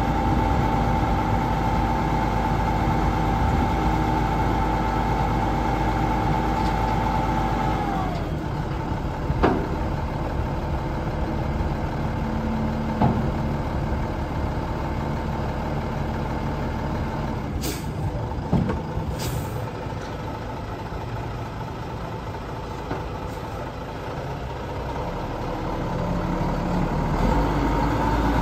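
Mack EM7-300 diesel engine of a tri-axle dump truck running at raised revs, which drop to idle about 8 seconds in as the raised dump bed is lowered. A sharp click follows, and two short bursts of air hiss come around the middle. The revs rise again near the end.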